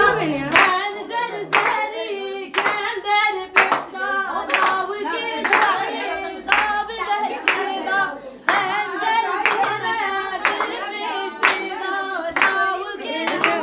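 A group of voices singing together, with loud hand claps keeping a steady beat about once a second.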